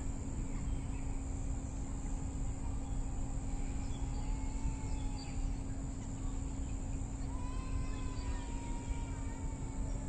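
Outdoor park ambience: a steady low rumble with a constant high insect drone, faint scattered bird chirps, and two long thin whistles, one near the middle and one near the end.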